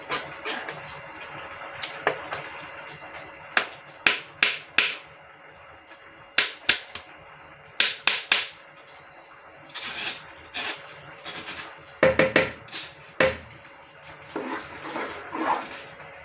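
Wooden spoon scraping and knocking against a plastic sieve as cooked tomato purée is pressed through it, in irregular short strokes and taps that cluster several times.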